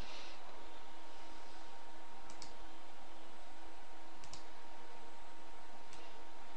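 Computer mouse clicking three times, each a quick pair of clicks a couple of seconds apart, over a steady hiss and a faint high hum.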